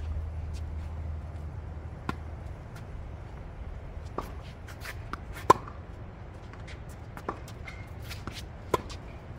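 A tennis rally on a hard court: the ball is hit by the rackets and bounces, giving sharp pops about every one and a half to two seconds, the loudest just past halfway. Sneakers scuff and shuffle on the court between the hits.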